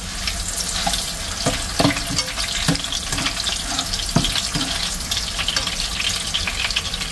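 Salmon fillet sizzling in butter with sliced garlic in a nonstick frying pan. A few short clicks and scrapes come from a plastic spatula as the fillet is turned.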